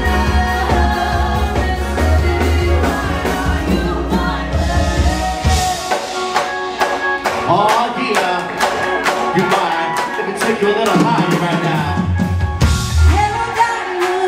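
Live band playing a song with drum kit and bass. The bass drops out about six seconds in and comes back briefly near the end, under a wavering melody line.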